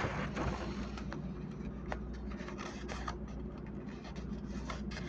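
Faint room tone: a steady low hum with light hiss and a few soft clicks.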